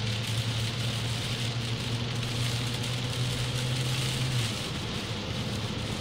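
Inside a car driving on a rain-soaked road: a steady low engine drone under a constant hiss of rain and tyre spray. The engine's hum drops away about four and a half seconds in.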